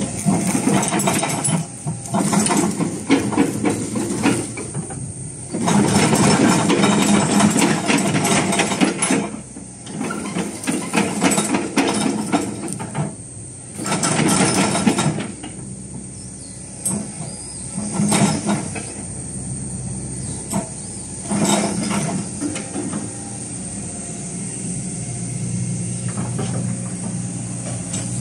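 Diesel engine of a Hitachi ZX120 excavator running with a steady low hum. Loud rushing, hissing noise comes and goes over roughly the first fifteen seconds, then the hum goes on more evenly.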